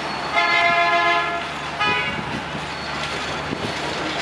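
Vehicle horn honking in the street traffic: one long blast about half a second in, then a short toot about two seconds in. Underneath are a steady engine hum and traffic noise.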